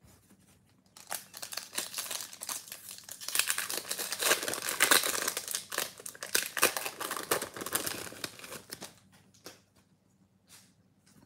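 Foil wrapper of a Bowman baseball card pack crinkling and tearing as it is ripped open by hand: a dense crackle that starts about a second in and stops near the end, followed by a few light taps.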